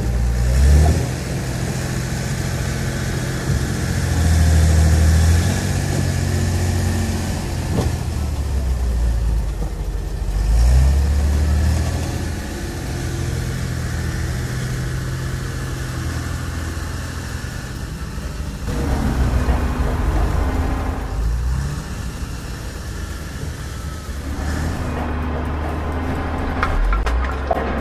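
Heavy vehicle engine sound effect running, its low drone stepping up and down in pitch and swelling louder several times as if revving.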